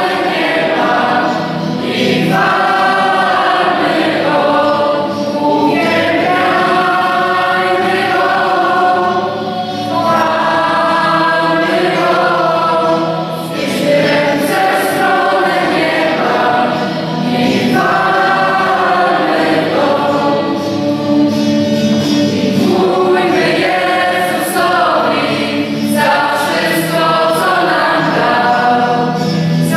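Youth choir singing a Christian worship song in a church, voices together in long, sustained phrases.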